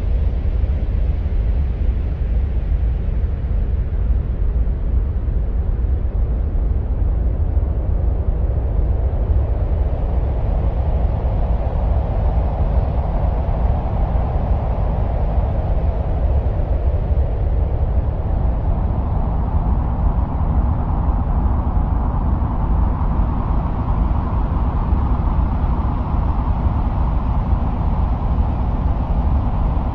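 Steady deep wind-like rumble presented as the sound of Mars, with a hissy layer above it that swells and fades twice.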